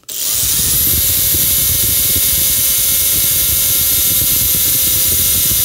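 Makita cordless drill running at steady full speed, its bit boring through a clamped metal plate. The motor spins up right at the start and then holds a steady high whine over the rough noise of the bit cutting.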